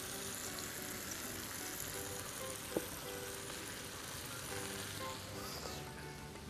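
Freshly chopped spinach sizzling in a hot pot as it starts to wilt, with a single sharp click a little under three seconds in.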